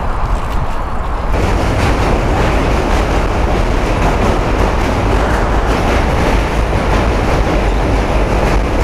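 A train clattering past, loud and steady, with wind noise on the microphone underneath. The clatter swells about a second in.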